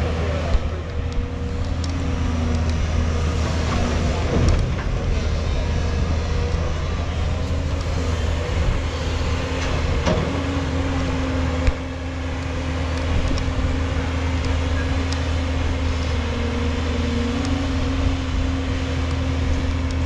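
Diesel engine of a JCB tracked excavator running steadily under hydraulic load while it digs and loads a dump truck, its pitch lifting slightly now and then as the boom and swing work. A few sharp knocks stand out, about half a second in and again around twelve seconds.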